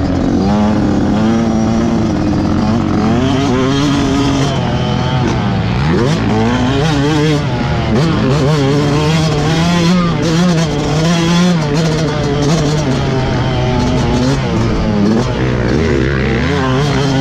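Yamaha YZ125's single-cylinder two-stroke engine running hard on a motocross track, its pitch rising and falling over and over as the throttle opens and closes.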